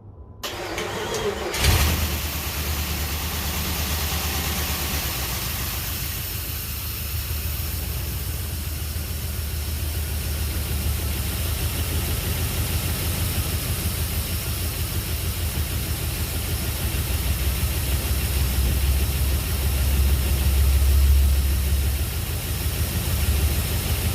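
Jeep Grand Cherokee engine cranking briefly on the starter, catching about a second and a half in, and settling into a steady idle on its first start after new connecting rod bearings. It may be missing a little, which the owner suspects is a vacuum leak, and a hiss runs over the idle.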